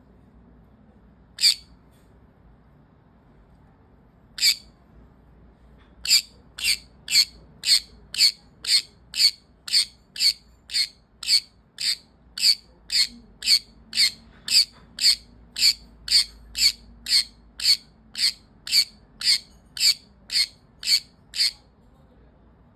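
Pet conure giving short, sharp, high-pitched calls: a few spaced a couple of seconds apart, then a long steady run of about two calls a second.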